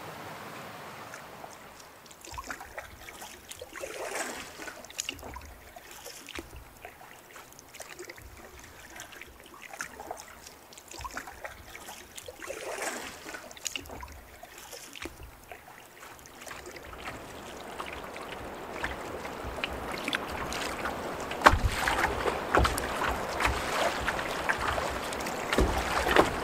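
Canoe on choppy open water: paddle strokes and water splashing and slapping against the hull, getting louder in the last third.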